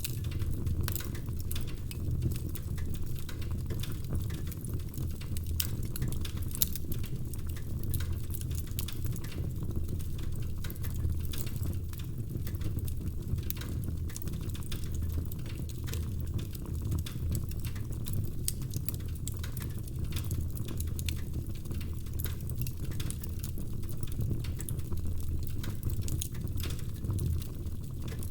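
Wood fire crackling: burning logs give off dense, irregular sharp pops and snaps over a steady low rumble of flame.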